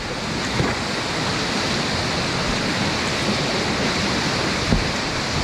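Steady rushing of a high-water river rapid, foaming whitewater close by.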